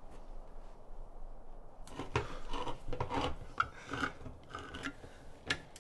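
Hand-held crank can opener cutting around the lid of a steel food can: a run of irregular rasping, clicking turns with squeaks of metal on metal, starting about two seconds in.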